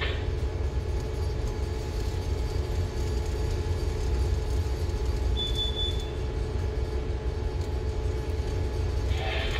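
Steady low drone of a ship's engine and machinery heard inside the bridge, with a steady hum over it. A short high beep sounds once, about five and a half seconds in.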